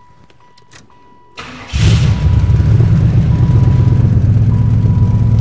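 A 1996 Buick Roadmaster's LT1 V8 being started: a brief crank about a second and a half in, catching almost at once and then running steadily.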